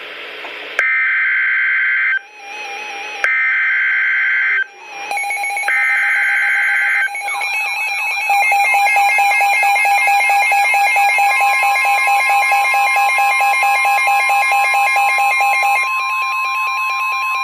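NOAA Weather Radio alert sequence. A moment of radio hiss, then three harsh, screechy SAME digital header bursts, each about a second and a half long, encoding the special marine warning. These give way to a loud, warbling, rapidly pulsing alert alarm, which the steady 1050 Hz weather-radio warning tone joins about eleven seconds in.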